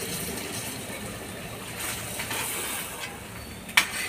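Paneer cubes sizzling as they fry in oil in a kadhai while a ladle stirs them, with one sharp clank of the ladle against the pan near the end.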